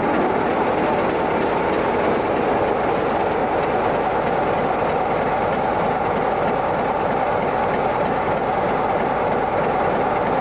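Train running on the rails: a steady rolling rumble with a faint brief high squeal about halfway through.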